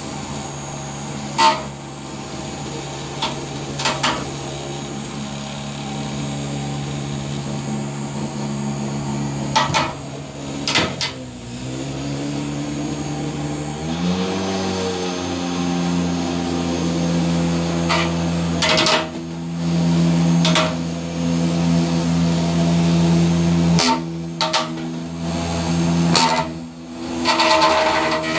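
Full-body spinner combat robot's carbon fibre dome spinning, a steady motor whine that sags and wavers about midway, then spins back up to a higher pitch. Several sharp knocks come as the spinning shell hits things in the box, more of them near the end.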